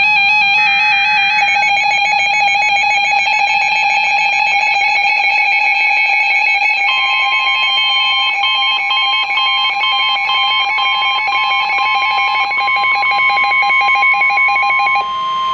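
Music plays throughout. About seven seconds in, the NOAA Weather Radio 1050 Hz warning alarm tone starts: one steady high tone held for about eight seconds that cuts off sharply. The tone signals the start of an emergency alert broadcast.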